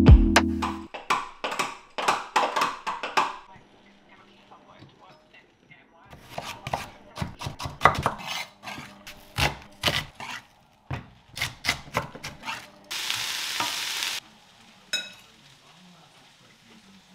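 A kitchen knife dicing carrots on a wooden chopping board: a run of quick, sharp knocks, followed by about a second of steady hiss and a single click near the end.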